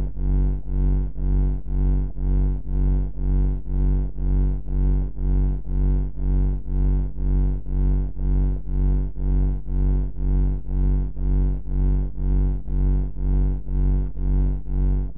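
Deep, steady electronic hum with a stack of overtones, pulsing evenly about twice a second, a synthesized bunker machinery drone.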